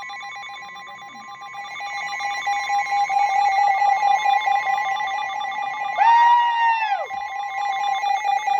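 Emergency alert attention tone: a loud, steady electronic alarm tone with a fast warble. About six seconds in, a person lets out a short high excited shout over it.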